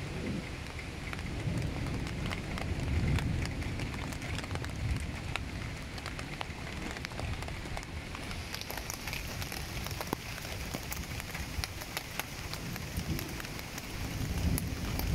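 Heavy rain falling in big drops, with many individual drops tapping close by over a steady hiss of rain. Low thunder rumbles underneath, swelling a couple of seconds in and building again near the end.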